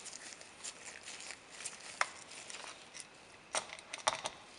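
Faint, scattered small metallic clicks and taps of a screwdriver and a loose steel screw being handled at a revolver's grip frame, with a quick cluster of clicks about three and a half seconds in.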